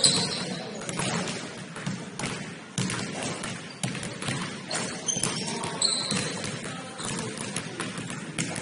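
A basketball bouncing on a gym floor amid many short knocks and thuds of play, with a few short high squeaks at the start and again about five and six seconds in.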